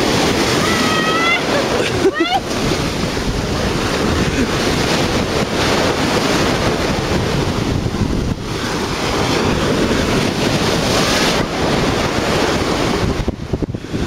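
Sea surf washing and breaking, with strong wind buffeting the microphone.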